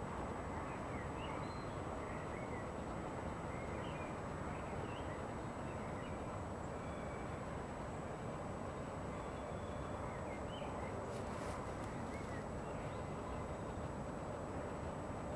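Steady distant rumble from the town and railway yard, with small birds chirping briefly here and there.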